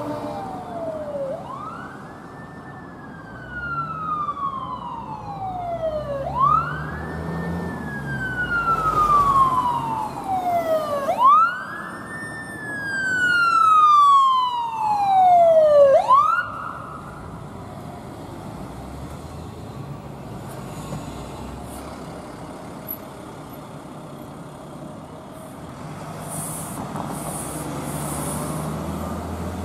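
Fire department emergency vehicle's electronic siren on a slow wail: four cycles, each rising quickly and then falling slowly, cutting off about halfway through. A heavy vehicle engine and traffic noise follow.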